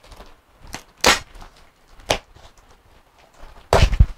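Cardboard shipping box being opened, a blade working through its packing tape: two short sharp scrapes about a second apart, then a longer, louder rasp near the end.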